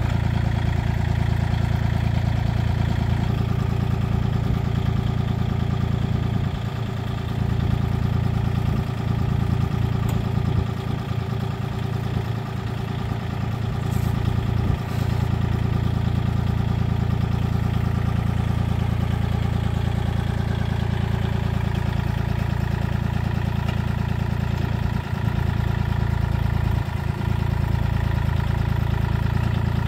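Kubota compact tractor's diesel engine running steadily at low speed.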